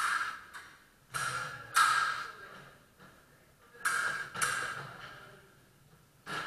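Fencing sabres striking against each other: a handful of sharp hits, mostly in pairs about half a second apart.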